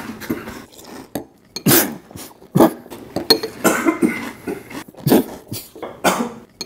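Cutlery clinking against dishes during a meal: a scattered series of sharp, short clinks.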